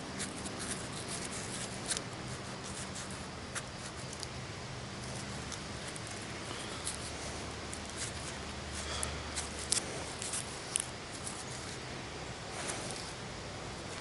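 Small scrapes and sharp clicks of a hand handling a freshly dug-up tube and loose soil close to the microphone, irregular throughout, with a cluster of louder clicks about nine to eleven seconds in.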